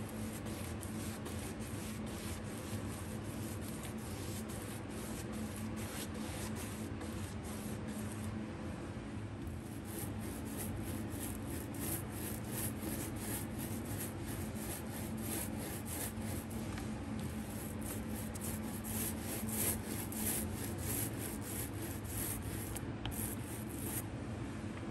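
Paintbrush strokes rubbing paint onto wood panelling, a quick run of repeated brushing scrapes, over the steady hum of an electric fan heater.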